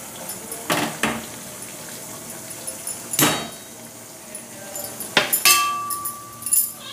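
Steel spoon stirring herbs in oil in an iron kadhai, knocking and clinking against the pan several times. One knock near the end leaves a ringing metallic tone for about a second and a half.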